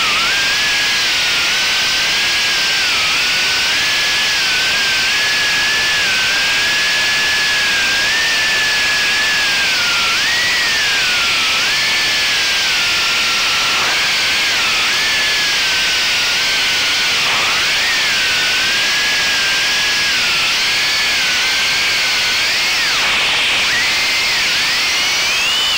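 Brushless motors of a 3-inch FPV quadcopter (AKK 1407 3400kv motors spinning HQProp 3x3x8 three-blade props), heard as a single whine that wavers up and down with throttle and rises sharply near the end, under a loud steady hiss.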